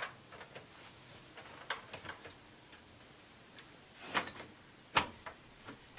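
Faint scattered clicks of hands handling cables inside a desktop computer case, then the case's side panel being set on, with a short rustle and a sharp click about five seconds in.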